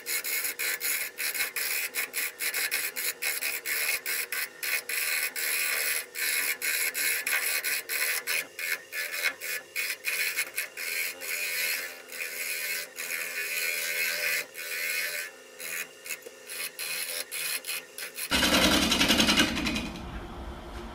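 Lathe gouge cutting a spinning spalted-wood bowl blank: a continuous scraping hiss broken by rapid, irregular clicks as the tool meets the uneven, gapped wood. About eighteen seconds in the cutting stops abruptly, giving way to a brief louder rumble and then a low steady hum.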